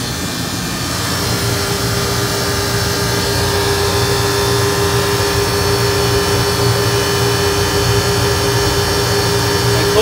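Walk-in freezer condensing unit running with a steady mechanical drone. About a second in, a steady hum joins and the sound grows a little louder as the hermetic compressor starts, putting the system back into refrigeration mode after the coil defrost.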